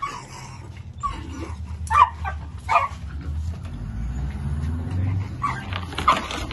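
Dogs barking and yelping in short sharp bursts, about five times, with a low rumble swelling through the middle.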